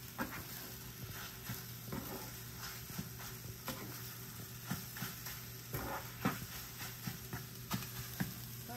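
Egg whites and spinach frying in a small pan, stirred and scraped with a spatula in irregular strokes over a light sizzle.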